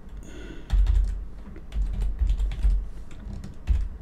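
Typing on a computer keyboard: irregular keystrokes in short runs with brief pauses.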